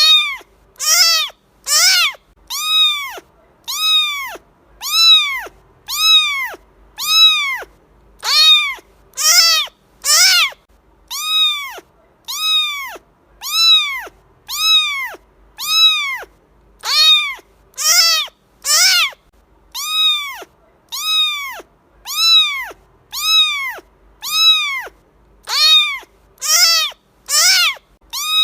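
Domestic cat meowing over and over, about once a second, each meow a short high call that rises and then falls in pitch, repeated very evenly.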